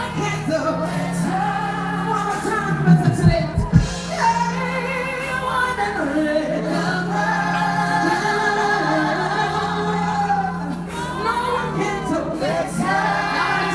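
Live pop music: a vocal sings long, sustained lines over a steady backing with a held bass note. A few heavy low thumps come about three to four seconds in.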